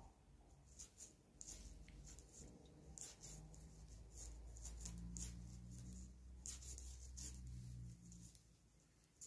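Faint, irregular light clicks and rubbing of knitting needles working stitches in yarn. A low steady hum swells underneath for a few seconds in the middle.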